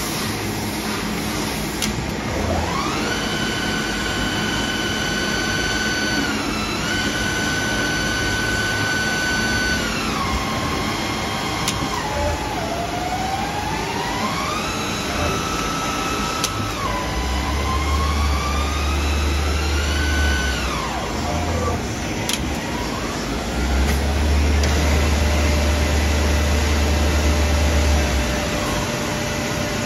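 EMCO Turn 425 MC CNC twin-spindle lathe running: a whining drive tone that glides up in pitch, holds, dips and rises again several times, over a steady machine hum. A deep low drone comes in twice for three to four seconds in the second half.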